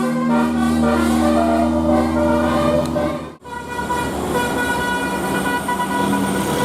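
Bus 'telolet' musical air horn sounding held notes of a tune, cut off suddenly about halfway through; steady horn tones then carry on over background noise.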